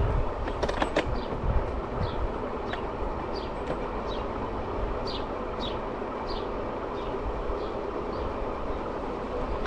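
Marti rental electric scooter rolling along a paved bike path: a steady low rumble and rattle from the small wheels, with a few sharp clicks about a second in. A string of short high chirps, each falling in pitch, repeats through the middle.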